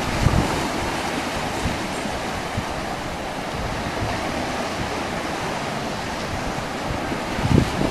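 Steady rush of sea and wind at the water's edge, with gusts of wind buffeting the microphone near the end.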